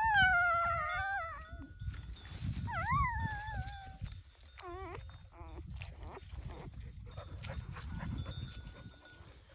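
Dog whining: a long wavering whine at the start, another rising and falling whine about three seconds in, and a few short lower whimpers around five seconds, over low rustling and handling noise.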